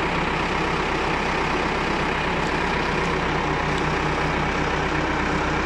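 Valmet tractor's diesel engine running at a steady speed while it drives the front loader's hydraulics to tilt a bag tipper.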